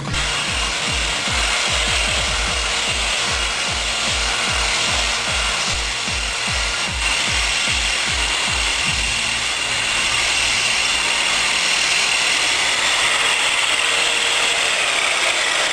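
Angle grinder running under load, a steady whine over a loud grinding hiss, with background music whose low, even beat fades out a little past halfway.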